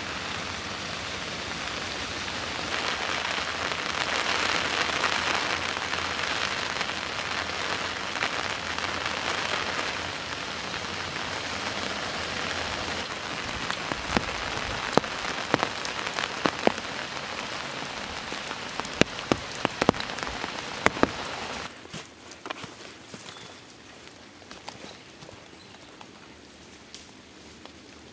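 Heavy rain falling steadily on wet ground and leaves, with loud single drops striking close by for several seconds past the middle. About three-quarters through it drops suddenly to lighter rain with scattered drips.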